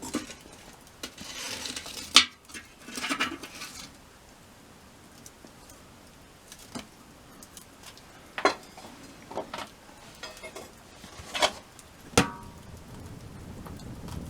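Scattered clinks and taps of utensils against cookware over a campfire, a handful of sharp strikes spread irregularly, the loudest about two seconds in and two close together near twelve seconds.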